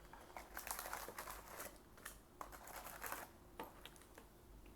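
Plastic and foil packaging crinkling and rustling as it is handled, in scattered bursts with a few light clicks.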